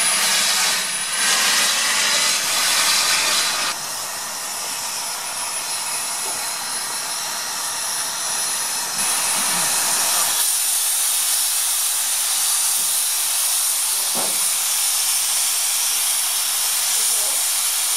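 Steady hiss of steam escaping from a small saddle-tank steam locomotive, its tone changing abruptly about four seconds in and again about ten seconds in.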